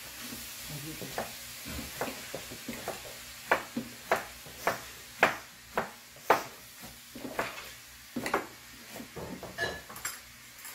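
Beef stir-frying in a wok with a low sizzle, a wooden spatula scraping and knocking against the pan. A run of sharp knocks comes about two a second through the middle, with a few more later.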